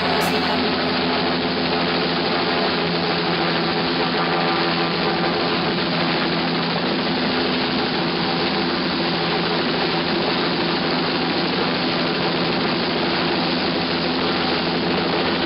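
Helicopter's engine and rotor running steadily in a hover, heard from on board, a constant hum with a few fixed low tones and no change in pitch.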